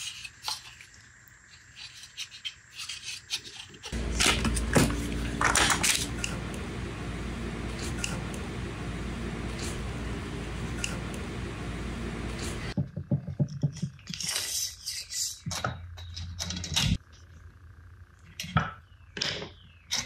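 A workshop power tool's motor runs steadily for about nine seconds, starting about four seconds in and cutting off suddenly. Before and after it come light scrapes, taps and clicks of hand work.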